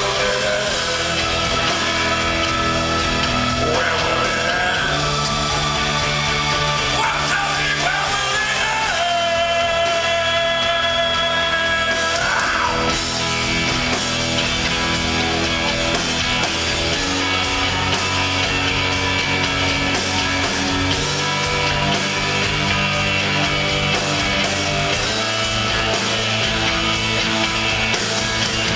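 Live rock band playing a loud, driving post-punk song on bass guitar, electric guitars and drums, with vocals over part of it, recorded from within the crowd in a large hall.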